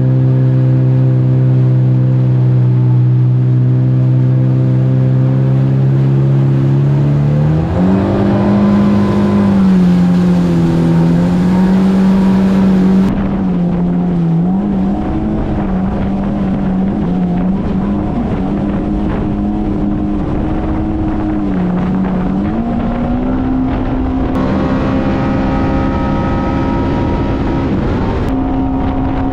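Yamaha GP1800R jet ski engine running at a steady low cruising note, then rising in pitch about eight seconds in and wavering up and down as the throttle changes while under way.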